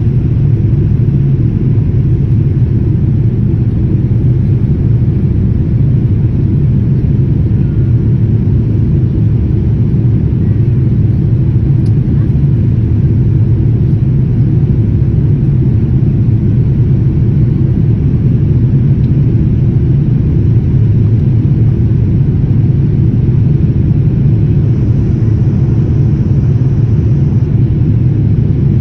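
Steady low rumble of jet airliner cabin noise during the climb after takeoff, engine and airflow noise heard inside the cabin.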